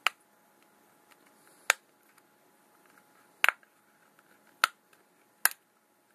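Sharp plastic clicks from the clip-on back cover of a cloned Samsung Galaxy S4 phone, its catches snapping as fingers press and pry around the cover's edges. Five clicks a second or so apart, one of them doubled about three and a half seconds in.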